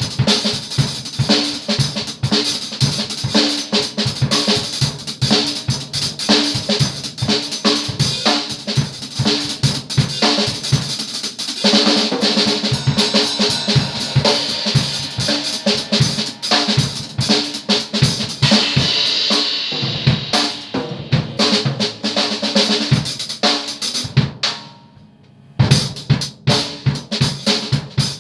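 Acoustic drum kit played fast: dense strokes on toms, snare and bass drum with cymbals ringing over them. The playing breaks off briefly about three seconds before the end, then comes back in with a loud hit.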